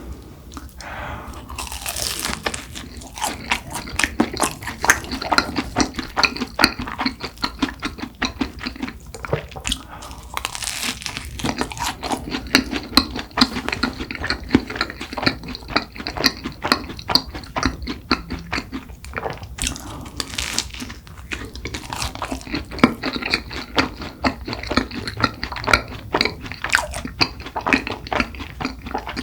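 Close-miked biting and chewing of cronuts: the flaky, laminated croissant-doughnut pastry crunches and crackles with every chew. Louder bites come near the start and again about a third and two thirds of the way through.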